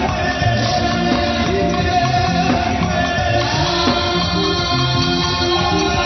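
Loud church praise-and-worship music: a band playing with voices singing, over a bass line that moves in short stepped notes.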